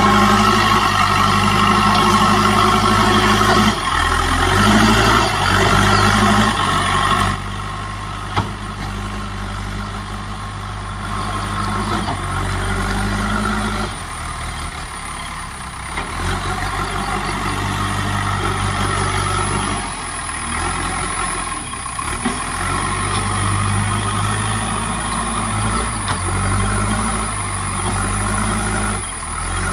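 JCB 3DX backhoe loader's Kirloskar diesel engine running under working load, its note rising and falling every few seconds as the machine pushes and digs. It is louder and brighter for the first seven seconds, with a sharp click about eight seconds in.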